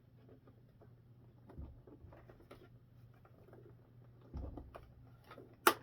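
Small plastic parts of a model tank kit being handled, with light clicks and taps, then one sharp snap near the end as a part is pressed into place.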